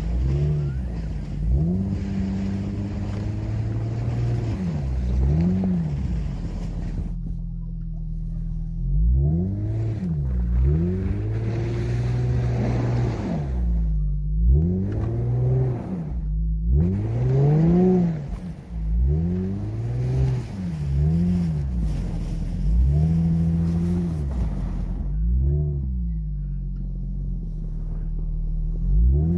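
Infiniti FX35's 3.5-litre V6 engine revving up and falling back again and again, under load as the car ploughs through deep snow.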